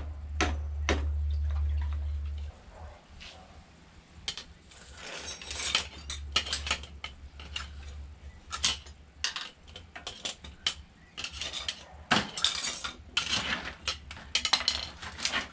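Metal hand tools clicking, clinking and scraping on the Honda CT110 engine's piston, an irregular run of sharp knocks. A low steady hum cuts out about two and a half seconds in.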